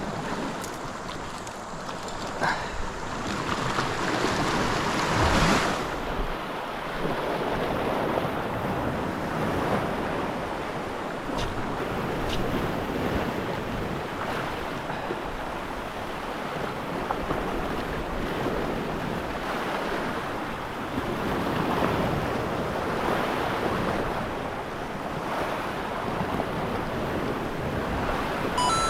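Wind rushing over the microphone together with sea water washing around the boat, swelling and easing in gusts every few seconds.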